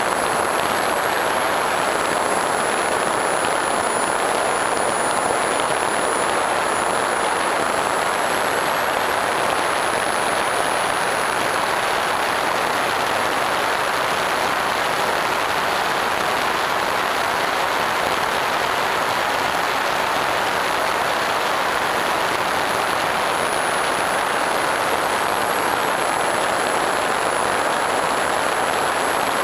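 Onboard audio of an electric FPV Raptor RC plane in cruising flight: a steady rush of wind and propeller noise with a thin, high whine that dips slightly in pitch about a third of the way in and again near the end.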